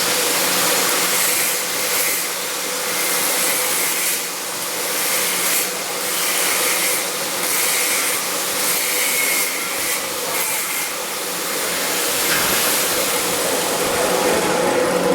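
Welding arc on carbon-steel pipe, a steady hiss with a faint hum beneath.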